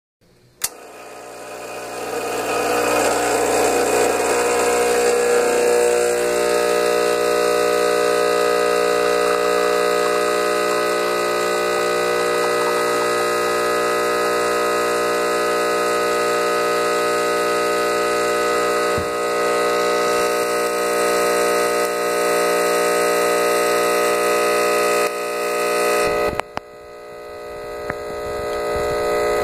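Rancilio Silvia espresso machine's vibratory pump running during an espresso shot: a steady buzzing hum with many tones that begins with a click, is rougher for the first few seconds while pressure builds, then holds steady. Near the end it drops away and swells again.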